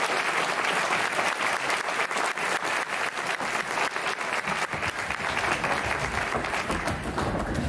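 Audience applause, many hands clapping at the end of a song, holding fairly steady and thinning slightly near the end.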